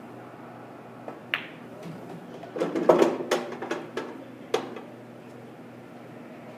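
Pool cue tip striking the cue ball with a sharp click, then pool balls knocking as the object ball is potted and rattles down through the table's ball return, followed by a couple more single clacks of balls.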